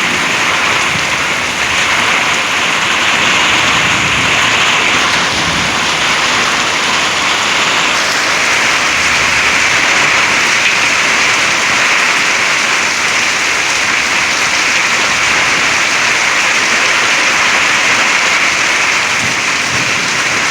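Heavy rain pouring down steadily in a severe thunderstorm, growing a little heavier about eight seconds in.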